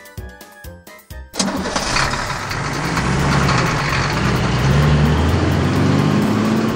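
Light children's music with plucked notes, then about a second and a half in a cartoon vehicle engine sound effect starts up suddenly and keeps running, its pitch climbing slightly.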